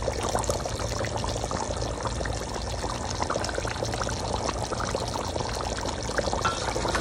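Beef curry simmering in a large pot, its thick gravy bubbling with many small pops over a steady hiss and a low hum.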